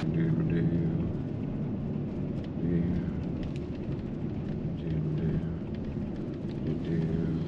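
A vehicle engine running, a steady low rumble whose pitch lines swell every couple of seconds, with a few faint ticks.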